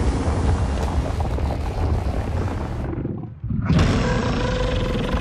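Dense, low rumbling battle sound design from a giant-monster action film. About three seconds in it drops away almost to silence for half a second, then comes back with a sudden loud hit, followed by a steady high tone.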